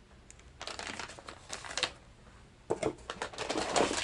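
Plastic package of soft-plastic fishing baits crinkling and rustling as it is handled, in two spells of crackle with small clicks, the second starting near the middle.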